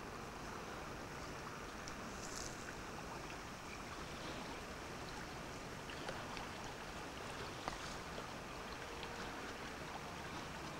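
Steady rush of a small, shallow river's flowing water, with a few faint clicks.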